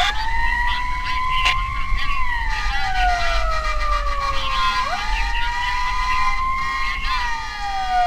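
Emergency vehicle siren wailing: each cycle sweeps up quickly, holds high for a couple of seconds, then slides slowly down, repeating about every five seconds.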